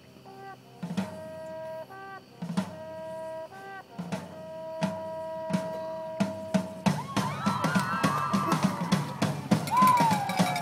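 Marching band playing: the brass holds sustained chords, punctuated by sharp drum hits, and about seven seconds in the drumline takes up a fast, busy rhythm.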